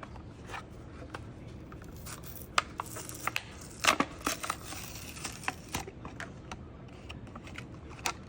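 Small parts of a die-cast toy car being handled and pried apart by hand: scattered light clicks, short scrapes and rustling, with a busier patch in the middle.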